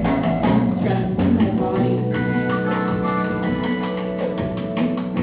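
Live instrumental music from a plucked string instrument played across the lap: quick picked notes over held tones.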